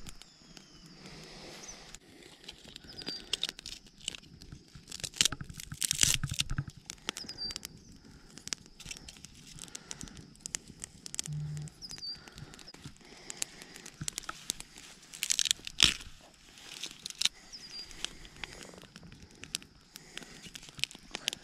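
Wood campfire crackling: irregular sharp pops and snaps, with louder clusters about five to six and fifteen to sixteen seconds in.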